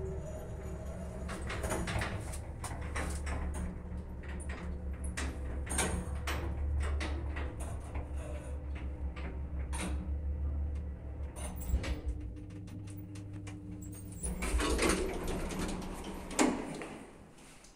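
A 1989 SamLZ passenger elevator car running down with a steady low hum and many clicks and rattles; the hum stops about twelve seconds in as the car halts at the floor. The automatic doors then slide open, ending with a loud knock.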